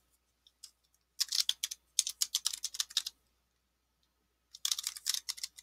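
Typing on a computer keyboard: a few lone keystrokes, then a quick run of keystrokes about a second in lasting some two seconds, and another run starting near the end.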